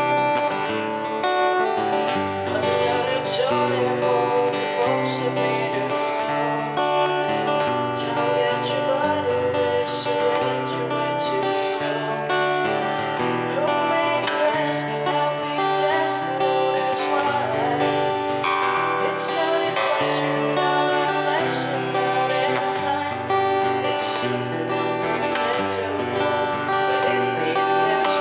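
SQOE Cranberries 41 acoustic guitar being played continuously for a sound test, ringing chords with frequent pick or strum attacks.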